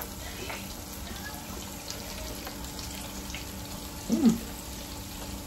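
Breaded pork chop deep-frying in an electric countertop deep fryer: a steady sizzle and bubbling of hot oil. About four seconds in, a brief falling vocal sound from a man.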